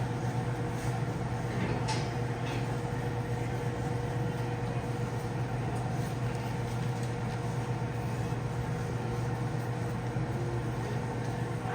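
Steady low drone of a running vehicle, unchanging throughout and cutting off abruptly at the end.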